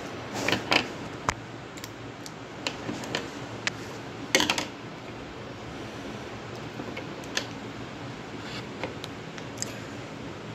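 Scissors snipping into a small foil-lined buttermilk carton on a ceramic plate while the cut pack is handled: an irregular scatter of sharp clicks, snips and crinkles, loudest in a cluster about four seconds in, over a steady background hiss.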